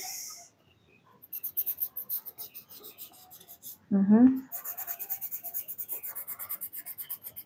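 Felt-tip marker scratching across paper in quick, rhythmic back-and-forth strokes as a drawing is coloured in, picked up close by a clip-on microphone. A brief child's vocal sound comes about four seconds in.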